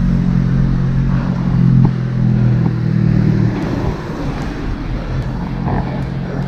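A motor vehicle engine running steadily close by, with a low even hum that cuts off about three and a half seconds in. Wind rumbles on the microphone throughout.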